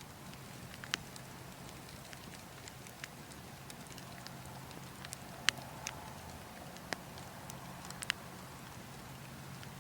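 Burning wood logs crackling, with scattered sharp pops, the loudest about halfway through, over a steady low rush of wind.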